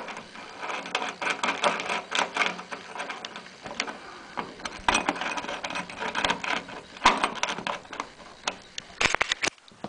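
Irregular metallic clicking and clinking of a bolt, washers and a wrench being handled and worked, stopping just before the end.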